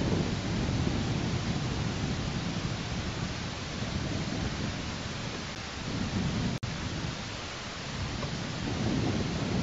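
Wind buffeting the microphone of a nest camera high in a tree: a steady rushing noise with rumbling low surges that rise and fall. It cuts out for an instant about two-thirds of the way through.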